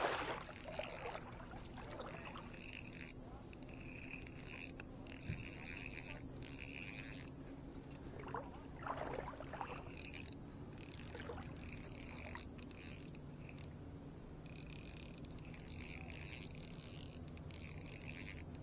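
Small spinning reel cranked in repeated spurts about a second long, reeling in a hooked fish, over a faint steady low hum.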